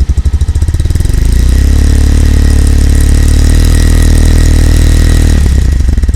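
Suzuki GD 110S's single-cylinder four-stroke engine heard close at the exhaust silencer. It idles with an even putter, is revved up about a second in and held at steady higher revs for about four seconds, then drops back to idle near the end.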